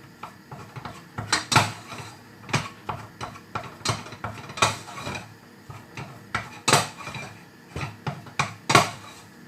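A utensil scraping and knocking against a saucepan as thick choux dough is stirred over the heat to dry out the water, the stage before the eggs go in. The knocks are irregular, with the loudest spread a second or two apart.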